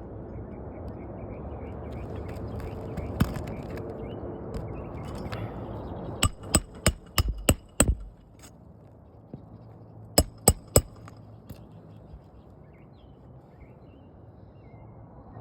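Hammer driving roofing nails into asphalt shingles: a quick run of about six sharp ringing strikes, then three more a couple of seconds later.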